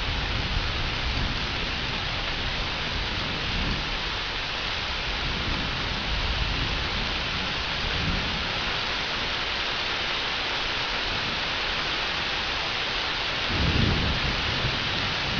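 Thunderstorm: steady heavy rain hissing, with thunder rumbling low several times and the loudest rumble near the end.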